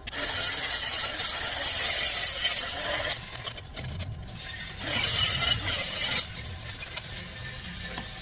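Air grinder working on a stainless steel tube, prepping it for purge welding. It runs loud for about three seconds, eases off, then comes back loud for about a second.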